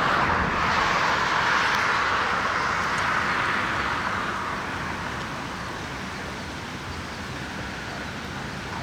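A car driving past on the road close behind, its tyre noise loudest at first and fading away over about four seconds, leaving a steady background rush.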